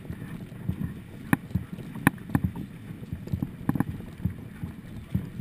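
Choppy water slapping against the hull of a small boat: irregular low thumps, several a second, some with a sharp knock on top, over a steady low wash.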